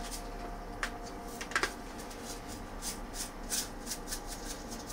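Salt being shaken over drained boiled potatoes: faint, soft rattling shakes a few times a second, after a couple of light knocks.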